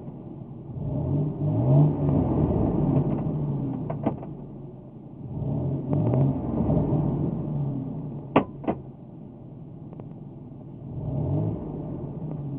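1998 Ford F-150 pickup engine revved up three times and let back down while the transmission sits in drive; the transmission has failed and gives no forward gears. A single click sounds about four seconds in and two sharp clicks close together after about eight seconds.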